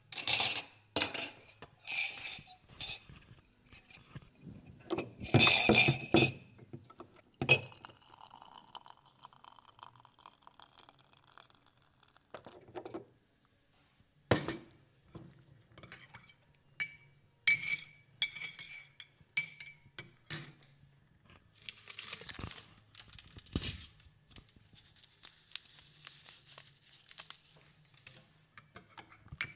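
Tea being made in a ceramic mug: cup and spoon clinking and clattering, then liquid poured into the mug with a rising pitch as it fills, then a spoon ringing against the mug several times as it stirs, followed by more pouring.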